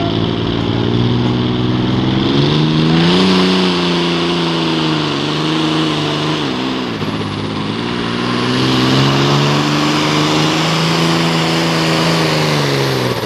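John Deere pro farm pulling tractor's diesel engine working at full power, dragging a weight-transfer sled down the track. The engine pitch climbs about two and a half seconds in, sags briefly around seven seconds, climbs again and holds, then falls away right at the end.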